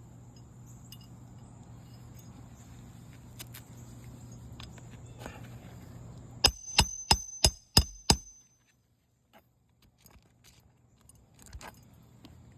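Hammer driving a nail through an asphalt shingle: six quick, ringing metal blows in about a second and a half, after faint scattered ticks of granules falling off the worn shingle.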